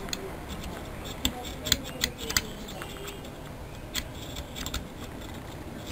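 Irregular small clicks and scrapes of hands handling the wiring inside a CRT television.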